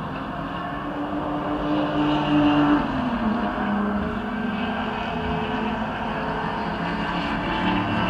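Race car engines going past on the track; one passing car's engine note drops in pitch about three seconds in, and more cars approach, growing louder near the end.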